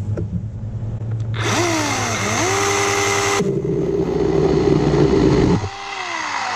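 Ryobi 18V ONE+ HP brushless chainsaw with a 10-inch bar. Its motor whines up about a second and a half in and runs at a steady pitch, then the sound changes as the chain bites into a dead log about 2.5 inches thick. The motor cuts off after the cut, and its whine falls away near the end.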